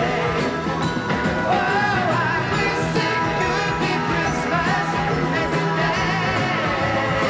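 Pop-rock song with a singing voice.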